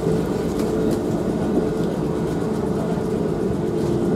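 Blackpool replica Vanguard tramcar 619, an electric tram, running along the track, heard from inside its open-sided saloon. A steady hum from the running gear sits over the rumble of the wheels on the rails.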